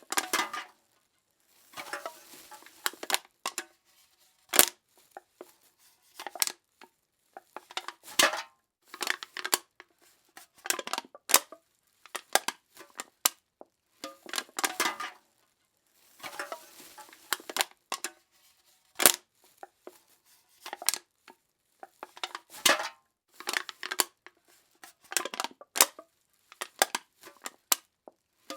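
Aluminum cans being crushed: a series of separate crunches, each a crackle of metal buckling with sharp cracks, one after another with brief silences between them.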